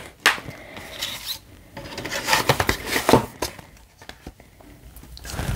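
A cardboard slipcover being slid over a plastic Blu-ray case. There is a sharp click about a quarter second in, then a scraping rub of card on plastic lasting about a second and a half, then lighter handling noise.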